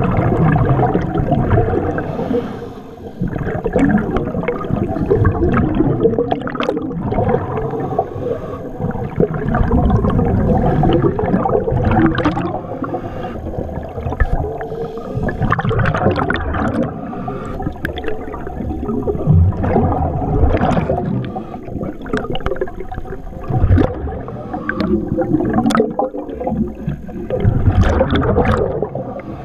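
Scuba diver breathing through a regulator underwater: surges of bubbling exhalation about every four to five seconds, with quieter inhalations between.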